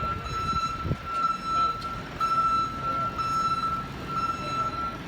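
Electronic alarm sounding a steady high-pitched tone, broken by short gaps about once a second.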